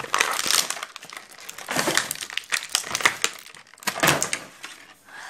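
An action figure's cardboard and plastic packaging being torn and crinkled open by hand: irregular rustling and crackling with sharp clicks.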